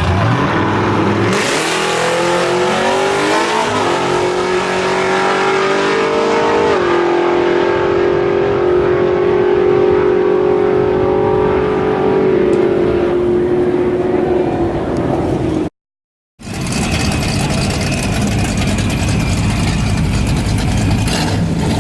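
Muscle-car engine revving hard, its pitch climbing in steps and then held high and steady for several seconds before dropping away. After a brief dead gap, another engine runs at a steady level.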